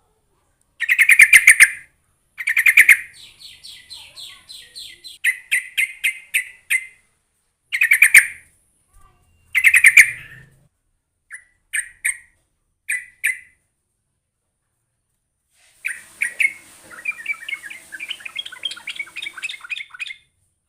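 Yellow-vented bulbul calling: a string of short, bubbly chattering phrases repeated with pauses between them, then a longer run of rapid chatter near the end.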